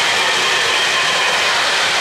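O-gauge model freight cars rolling past on three-rail track: the steady rolling noise of metal wheels on the rails.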